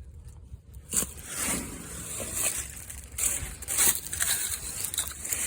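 Hand tools working on a stuck fastener on a Wisconsin V4 engine during teardown, trying to break it loose: irregular metal clicks, knocks and scraping, with a sharp knock about a second in.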